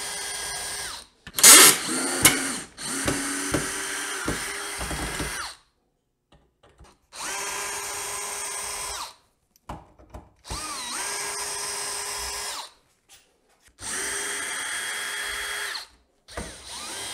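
Power drill backing screws out of wooden benchwork. It runs in about six steady bursts of roughly two seconds each, and several bursts open with a short rising whine as the motor spins up. A loud knock sounds about a second and a half in.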